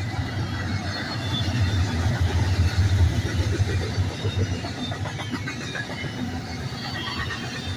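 Double-stack intermodal freight train rolling past: well cars' steel wheels rumbling and clattering over the rail joints, loudest about three seconds in.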